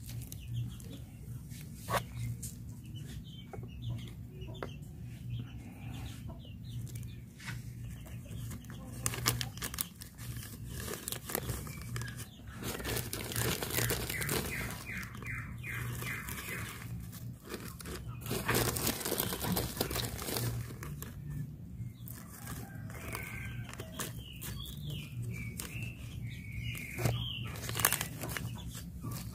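Scattered rustling, tapping and knocks of soil and plastic polybags being handled while banana seedlings are transplanted. Chickens cluck in the background, with a few short calls near the end.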